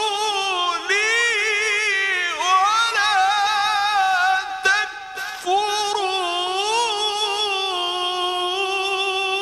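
A man reciting the Quran in the melodic tajweed style, holding long drawn-out notes with ornamented turns of pitch. He breaks off briefly about halfway through, then carries on with a long held phrase.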